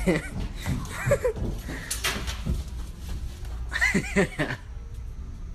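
Teenagers' short high-pitched yelps and whoops: a few brief vocal outbursts, at the start, about a second in and again around four seconds in, over a steady low hum.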